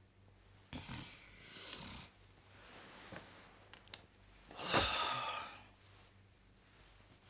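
A person snoring in their sleep: two long, rasping snores about three and a half seconds apart, the second louder.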